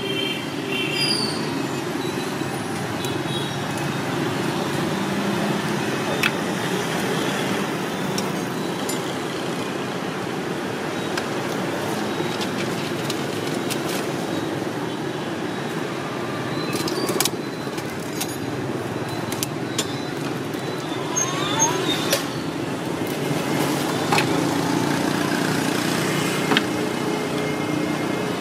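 Steady street traffic rumble from passing vehicles, with a few light clicks and clinks of metal tongs and a knife at a food cart.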